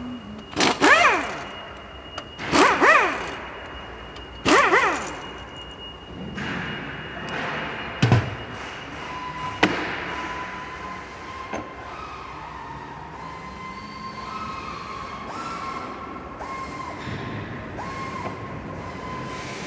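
Factory assembly-line machine noise: four short whining bursts about two seconds apart, a sharp knock about eight seconds in, then a steady machine hum with a faint high whine.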